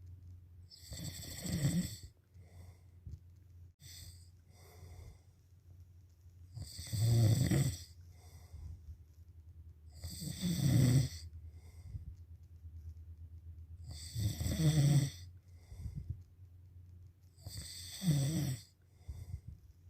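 Snoring in a regular rhythm: five loud snores about four seconds apart, with fainter breaths in between.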